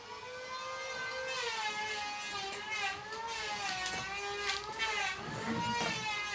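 A motor running with a steady whine that wavers slowly up and down in pitch, with a few light clicks.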